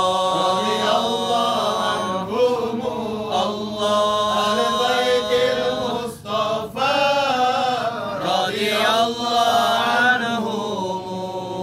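A group of men chanting an Arabic devotional verse together, drawing out long notes whose pitch slides up and down, with a brief pause for breath about six seconds in.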